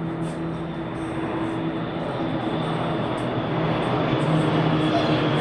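Formations of light propeller aircraft flying over, their piston engines a steady drone that grows slowly louder as they approach.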